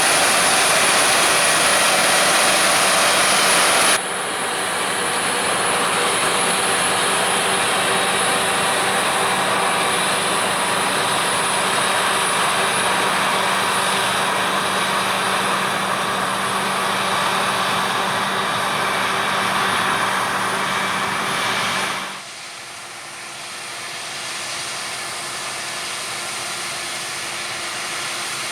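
Heavy harvest machinery running steadily, with engine and machine noise. The sound changes abruptly twice: it drops at about four seconds and becomes much quieter at about 22 seconds.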